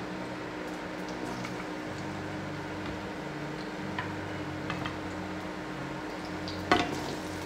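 Sliced garlic sizzling and bubbling in hot oil in a wok, with a few small pops and one sharp click near the end.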